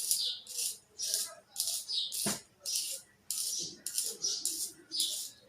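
A pencil being turned in a hand-held sharpener: short scraping strokes repeating about twice a second, with one sharp knock a little past two seconds in.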